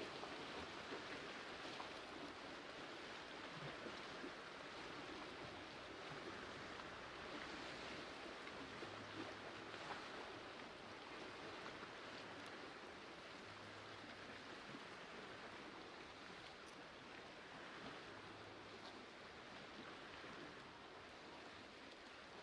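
Soft, steady rush of gently moving lake water along a rocky shore, easing slightly toward the end.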